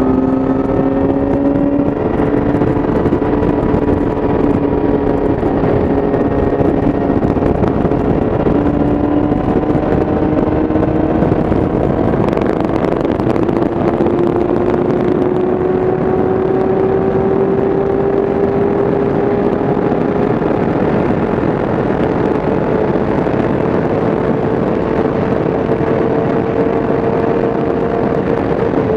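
Yamaha YZF-R6 inline-four sport bike engine running at highway speed through an Akrapovic exhaust, its note climbing slowly in pitch, over heavy wind rush.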